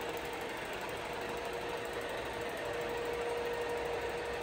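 TOS FA4V vertical milling machine running, a steady mechanical whir with a constant whining tone that gets a little louder about halfway through.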